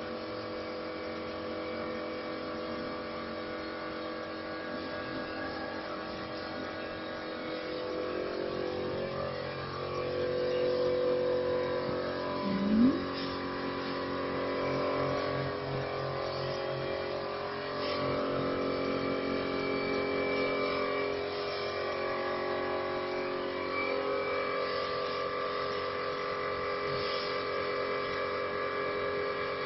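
CNC wood lathe running in 4-axis engraving mode: the router spindle and stepper motors hum steadily as the cutter carves a wooden spindle. The motor tones shift in pitch now and then, with a brief sharp rising note about 13 seconds in.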